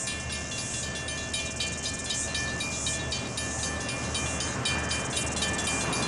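Diesel-hauled freight train approaching, its locomotive engine rumbling low and steady. Over it, level crossing alarm bells ring at about three strokes a second.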